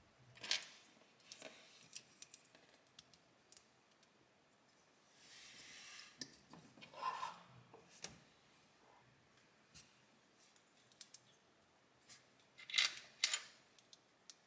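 LEGO plastic bricks being handled and pressed together, a string of small sharp clicks with a brief rustle around the middle. The loudest are two clicks close together near the end.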